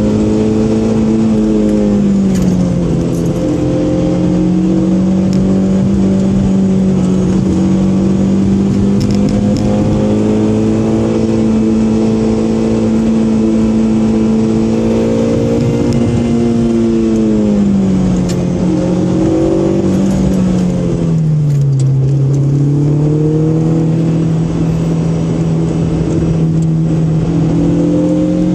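Car engine heard from inside the cabin over steady tyre and road noise, holding an even note for most of the stretch. About two-thirds of the way through, the pitch drops as the driver eases off, then it settles and picks up again near the end.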